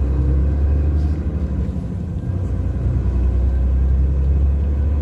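Steady low rumble of a moving road vehicle's engine and tyres, heard from inside the vehicle.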